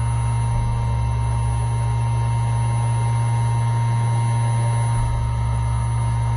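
Steady low electrical hum with a fainter higher tone held over it, unchanging throughout.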